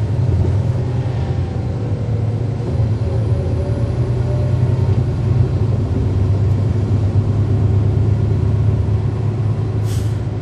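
2009 NABI 40-SFW transit bus with a Cummins ISL9 straight-six diesel engine and ZF Ecomat transmission, running under way with a steady low drone. A short sharp clack comes near the end.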